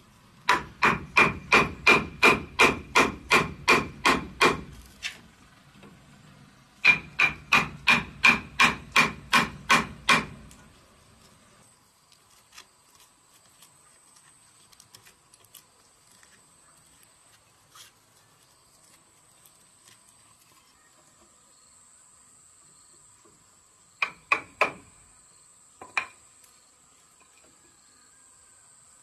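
Wooden mallet striking a steel chisel to cut a mortise in a wooden board. Two quick runs of strikes at about four a second, then faint small clicks as chips are picked out of the hole, and a few more strikes near the end.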